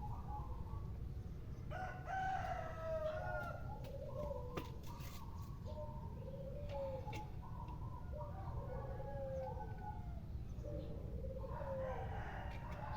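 Repeated pitched animal calls, several overlapping, many falling in pitch, over a steady low rumble.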